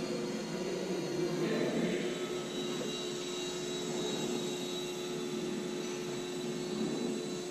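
Small electric motor and propeller of a Microaces Airco DH.2 RC model plane in flight, running at steady throttle with a steady whine.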